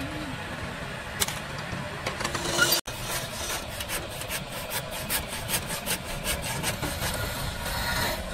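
Hand saw cutting through the wood between a turned piece and the lathe chuck to part it off, in quick repeated rasping strokes from about three seconds in.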